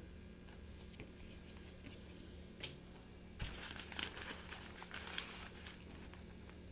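Packaging being handled and crinkled while a box is unpacked: a single click, then a cluster of crackly rustles lasting about two seconds.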